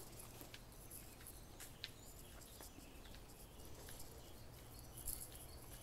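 Faint outdoor ambience: a low steady rumble with a few faint, brief high chirps and scattered ticks.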